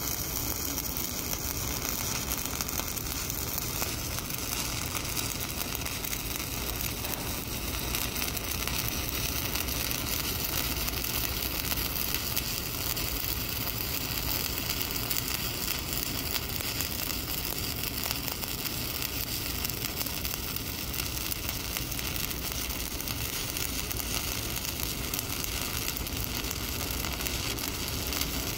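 Stick (SMAW) welding arc on an E7018 electrode, crackling and sizzling steadily without a break as a fill pass is run.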